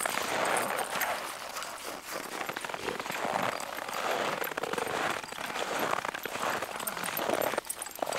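Footsteps crunching through packed snow, a continuous crackly crunch with many fine clicks.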